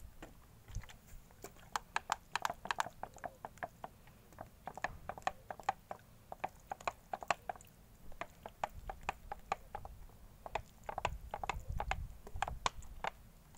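Irregular small clicks and crackles, a few a second in loose clusters, from a plastic drink bottle being handled and squeezed while watering seedling pots.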